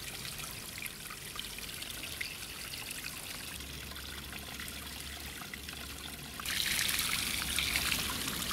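A thin stream of water trickling out of a drainage pipe and splashing onto rocks. It is steady throughout and gets louder about six and a half seconds in.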